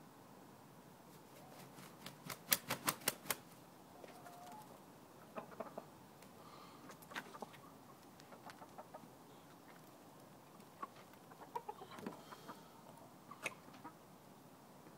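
Backyard chickens moving about with a few soft clucks. A quick run of about seven sharp taps comes a couple of seconds in, and scattered single clicks follow.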